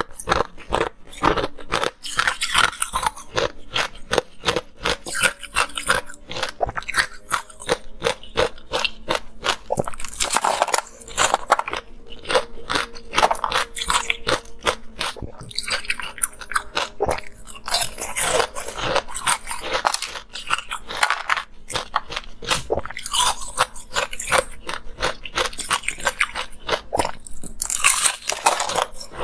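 Close-miked biting and chewing of thin ice sheets with pomegranate seeds frozen in them: a steady run of sharp cracks and crunches, with louder bites now and then.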